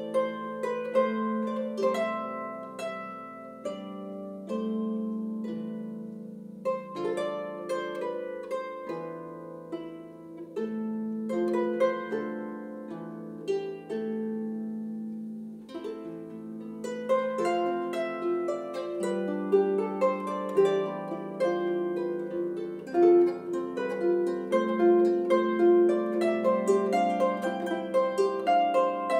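Lever harp played solo: a plucked melody over low notes left to ring, with the notes coming thicker and faster in the latter part.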